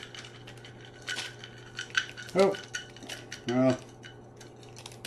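Slivered almonds rattling in a measuring cup as they are shaken out across a pan, an uneven run of light clicks and taps. Two short wordless vocal sounds come about two and a half and three and a half seconds in.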